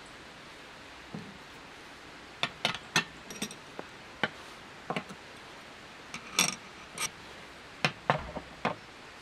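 Irregular sharp clinks and knocks of hard objects being handled, about a dozen in all, some ringing briefly.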